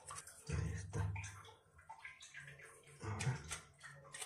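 Water running as a toilet tank refills through its fill valve, with a few low bumps about half a second, a second and three seconds in.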